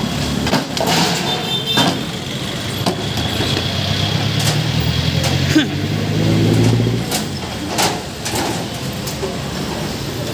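Street traffic noise with a passing motor vehicle's engine, loudest around the middle, and scattered sharp knocks.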